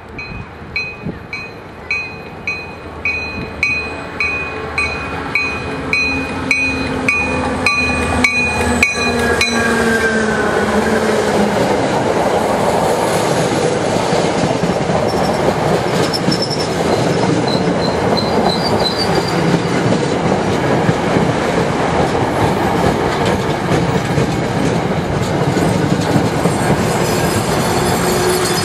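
MBTA commuter train passing close by. A bell rings about twice a second as it approaches, and the locomotive's sound falls in pitch as it goes by about ten seconds in. After that comes a steady loud rumble of coach wheels on the rails, with faint wheel squeal.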